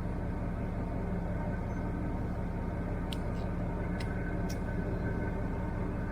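Fishing boat's engine running steadily, a low droning hum. A few short sharp clicks sound about three and four seconds in.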